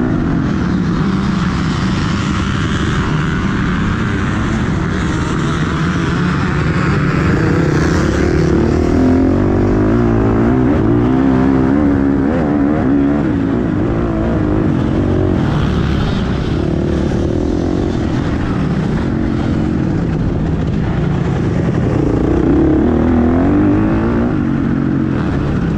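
A motocross bike's engine heard from the rider's helmet camera at race pace, revving up and falling back again and again as the rider accelerates and eases off.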